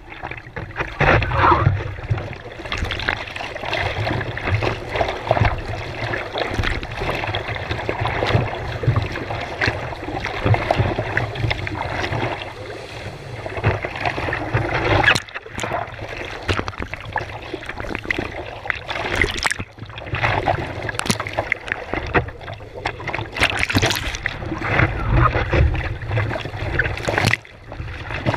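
Sea water rushing and splashing over an action camera mounted on the nose of a surfboard riding a wave: a steady rush with a low rumble and repeated sharp splashes.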